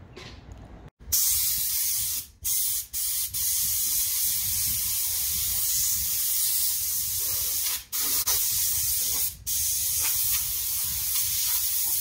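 Compressed air hissing from a handheld air gun on an air compressor's hose, starting about a second in and blowing in long blasts with a few brief breaks.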